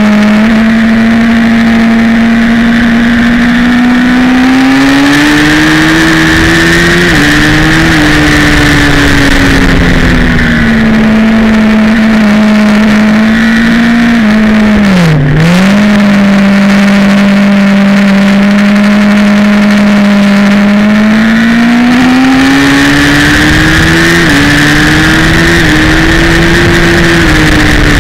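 Sport bike engine running at high revs on track, seen from the rider's seat. The note climbs and steps down at quick upshifts about seven and eight seconds in, holds, then dips sharply and recovers around the middle as the throttle is closed and reopened. Late on it climbs again through two more upshifts, over steady wind rush.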